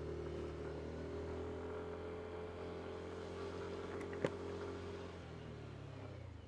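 Motor scooter engine running steadily, with a sharp click about four seconds in and the engine note dropping slightly after about five seconds.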